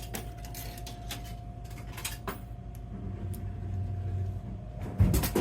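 Soda can vending machine dispensing: after a few sharp clicks, the vend motor hums for about a second and a half, then a can drops into the delivery bin with a loud thud near the end. A steady machine hum runs underneath.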